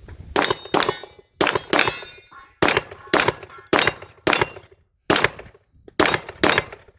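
Rapid pistol shots at steel targets, about eleven in quick pairs and short strings, some followed by the clanging ring of a hit on steel.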